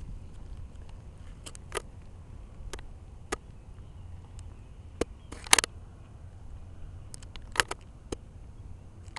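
Wind rumbling on the microphone, with a scattering of sharp clicks and crackles at uneven intervals. The loudest come in a quick cluster about halfway through.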